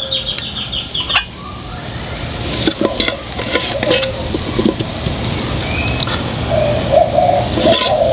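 A metal spatula scraping and clicking against a steel cooking disc as shrimp and potatoes are scooped onto a plate. Birds chirp quickly at the start, and a dove coos from about two-thirds of the way in.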